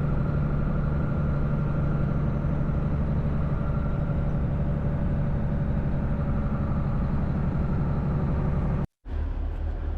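Steady drone of a semi truck's diesel engine heard from inside the cab, with a deep, even hum. It cuts to silence for a moment about nine seconds in, then resumes.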